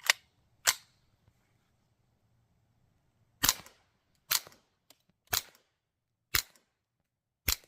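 Seven suppressed .22 LR rifle shots from a Ruger 10/22 Charger with an Anechoic Anechox-22 suppressor, firing Winchester Super Suppressed subsonic rounds: two shots less than a second apart, then five about a second apart. The shots have a lot of pop and are not very consistent, some louder than others.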